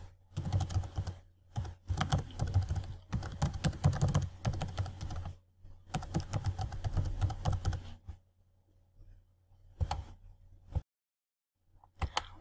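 Typing on a computer keyboard, a fast run of key clicks with a short break about five seconds in, then a few single clicks near the end.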